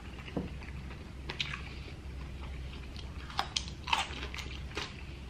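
A person biting and chewing food, with scattered short sharp mouth clicks and smacks, more of them in the second half.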